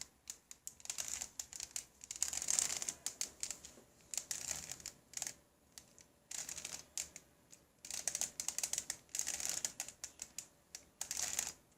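3x3 Rubik's cube layers being turned by hand: runs of quick plastic clicking and rasping, broken by short pauses between the moves.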